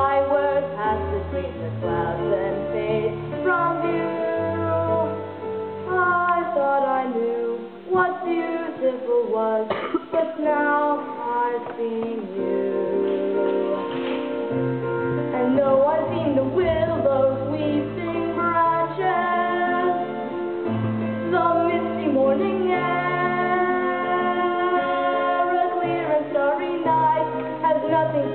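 A female voice singing a slow ballad over instrumental accompaniment with sustained bass notes.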